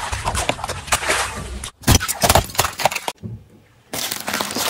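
Car tyre rolling over and crushing objects on the ground: dense crackling and crunching, with sharp loud snaps about two seconds in, a brief lull, then more crunching near the end.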